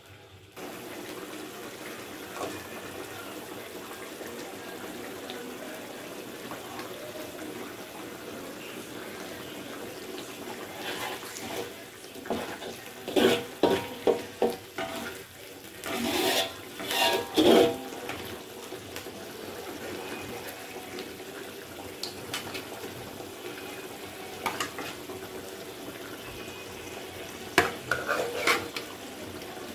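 Spicy-sour sauce simmering in a wok with a steady hiss. Through the middle, a metal spatula scrapes and clatters against the wok as the sauce is stirred. Near the end, a few metal knocks come as catfish pieces are tipped in from a metal pot.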